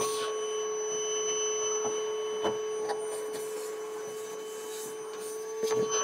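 Shop vacuum running steadily with a whining hum while dust is sucked out of a furnace's blower compartment, with a few light knocks of the nozzle against the cabinet.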